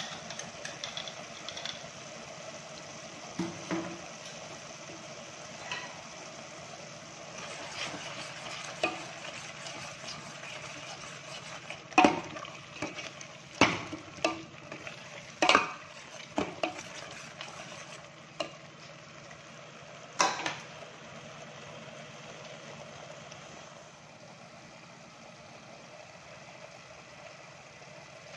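Tomato-onion masala frying and sizzling steadily in a steel pot, stirred with a ladle that clanks sharply against the pot several times about halfway through.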